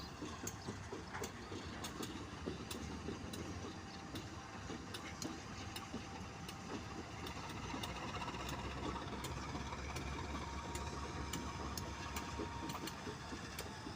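Train's diesel engine running at low revs, its rumble swelling about eight seconds in, with scattered light clicks.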